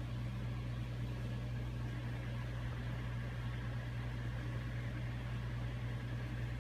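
Steady low electrical hum with an even hiss beneath it, unchanging throughout.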